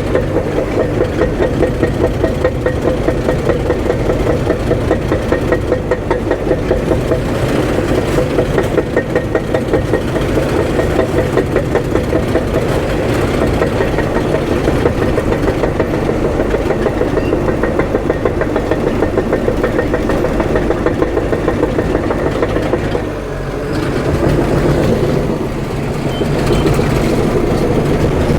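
Diesel engine of a tracked earthmoving machine running steadily under work, with an even pulsing about three times a second. It drops briefly about 23 seconds in, then picks back up.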